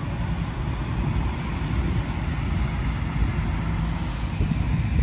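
Diesel semi-truck pulling a trailer past at low speed, its engine running steadily with a low drone.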